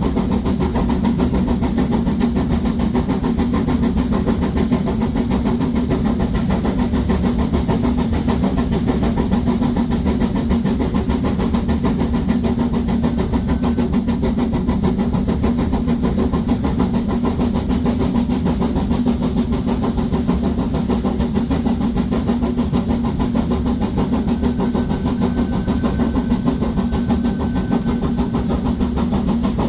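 Harz narrow-gauge 2-10-2T steam locomotive 99 7240-7 working hard up a 1-in-25 grade with seven loaded coaches, its exhaust beating steadily and continuously.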